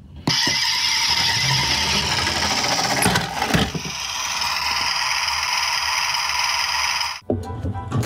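Toy garbage truck's built-in engine sound effect playing from its small speaker: a loud truck-engine noise that starts suddenly and cuts off suddenly about seven seconds later, with a few clicks and rattles about three seconds in.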